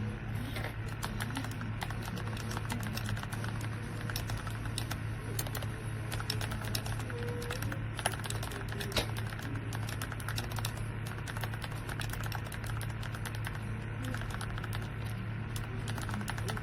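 Typing on an AULA F99 wireless mechanical keyboard: a fast, uneven run of keystroke clicks, over background music.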